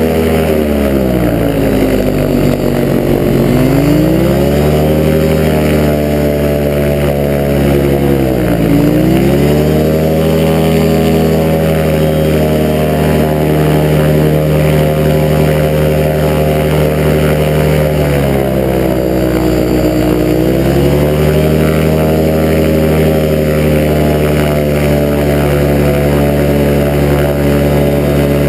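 Engine of a small roll-barred off-road vehicle driving over snow, held at steady revs, its pitch dropping and climbing back three times as the throttle eases off and opens again.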